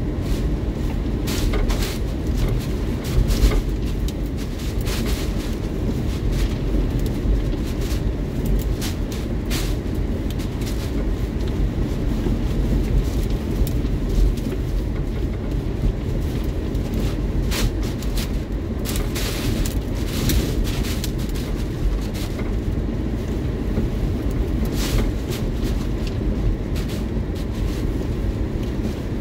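Hurricane winds battering a vehicle and driving heavy rain against its windshield, heard from inside the cab: a constant deep rumble with irregular sharp hits and gusts.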